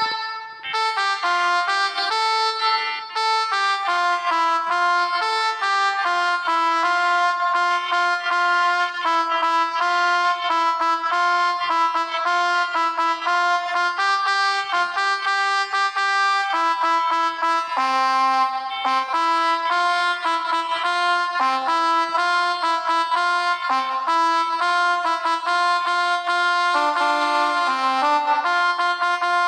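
Phone melodica (pianika) app playing a continuous run of reedy, horn-like notes, several tones sounding together and changing every fraction of a second, picking out a telolet bus-horn tune.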